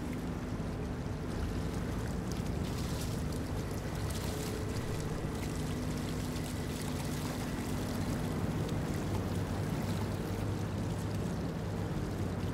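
Steady drone of boat machinery with several even tones, over splashing and churning water as a crowded mass of netted fish thrashes at the surface around a fish-pump intake.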